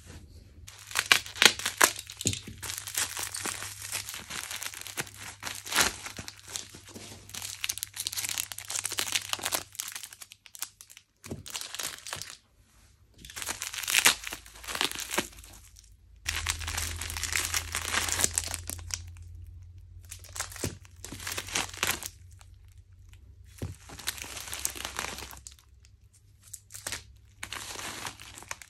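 Bubble wrap crinkling and crackling as small packets are unwrapped by hand, in irregular bursts with short pauses between them.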